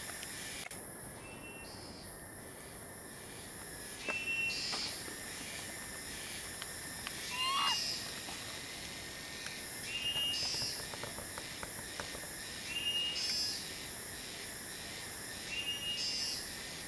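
A bird calls five times, a short high note every two to three seconds. The loudest call, near the middle, slides down in pitch. A steady high hiss runs underneath.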